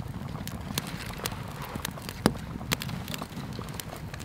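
Small campfire of dry sticks crackling in a stone fire ring, with scattered sharp pops; one louder pop a little past halfway. A low steady rumble runs underneath.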